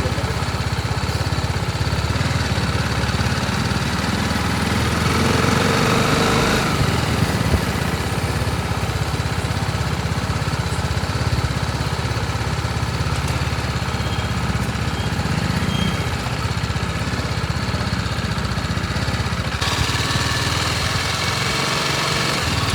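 BMW G 310 RR single-cylinder motorcycle engine running steadily, with a couple of brief, small rises in engine speed.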